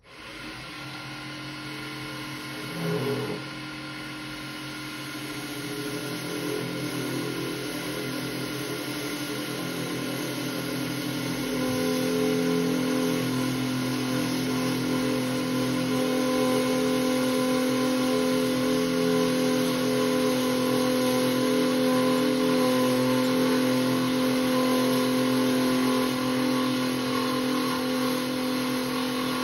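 Small benchtop lathe running, spinning a glow-in-the-dark resin pen blank on a pen mandrel while a turning gouge cuts it. It makes a steady hum and whir that comes on at the start and grows louder over the first half, with a brief knock about three seconds in.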